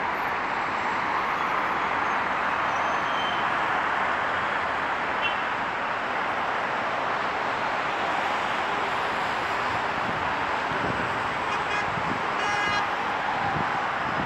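Steady traffic noise from a busy multi-lane city road, the mixed sound of many passing cars, vans and buses. A vehicle horn honks briefly near the end.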